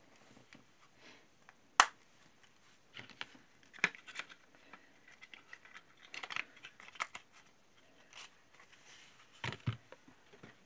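Hands handling a blush compact and its small cardboard box: one sharp click about two seconds in, then scattered small clicks and rustling, and two dull knocks near the end.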